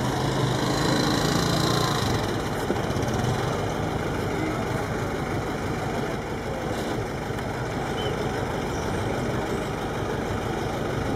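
A motor vehicle engine idling steadily amid street noise, with a low hum most noticeable in the first couple of seconds.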